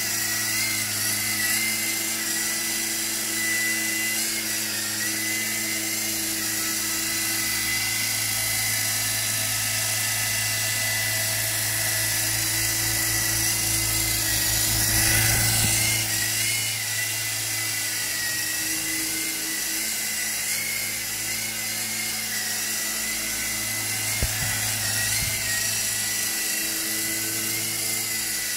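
Silverlit toy RC helicopter's small electric motor and rotors whirring steadily in flight, a high whine whose pitch wavers slightly, over a low hum. It gets a little louder about halfway, and there is a brief knock near the end.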